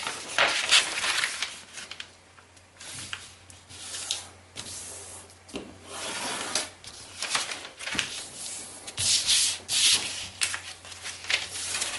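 A large sheet of duo-colour kami paper being folded and creased by hand: a series of separate rubbing swishes as the paper is slid, bent and its creases pressed flat.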